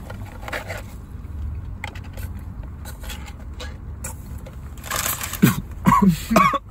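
A man speed-eating: quiet sipping through a straw and chewing, then about five seconds in a sharp noisy burst followed by a few short throaty coughs.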